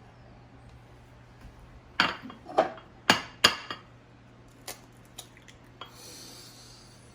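Eggs being cracked against the rim of a mixing bowl: four sharp, loud taps in quick succession, then a few lighter clicks.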